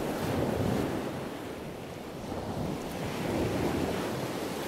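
Ocean surf: a steady rushing wash of waves that swells and falls back twice.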